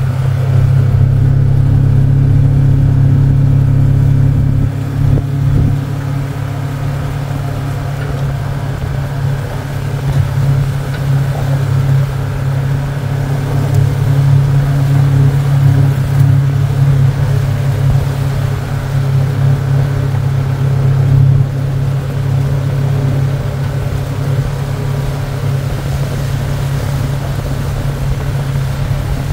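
Vehicle engine running steadily while driving, a low drone that rises and falls slightly in level.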